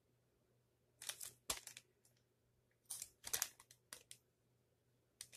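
Plastic bread bag of hamburger buns crinkling faintly as it is handled, in several short rustles with pauses between.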